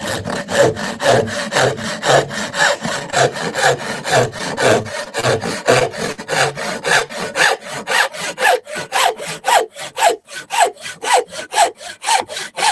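Handsaw cutting through plywood: a steady run of rasping back-and-forth strokes, about three a second, with the strokes slightly more separated near the end.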